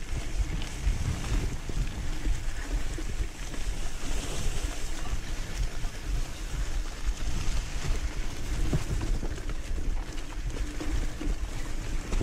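Wind buffeting the microphone on a moving off-road enduro motorcycle, a rough, fluctuating rumble with the bike's running and the track noise mixed in underneath.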